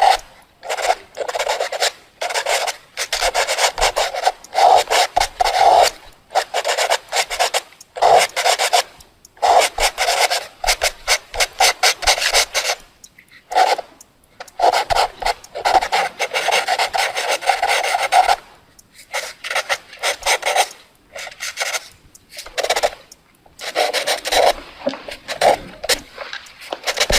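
Fast drawing: a drawing tool scratching across paper in quick back-and-forth strokes, coming in bursts of one to two seconds with short pauses between them.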